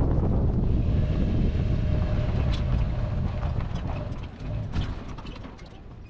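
Wind on the microphone and tyre and road rumble from a Toyota 4Runner driving up a dirt road with a hang glider on its roof rack, with scattered sharp clicks and rattles from about two and a half seconds in. The rumble drops off over the last two seconds.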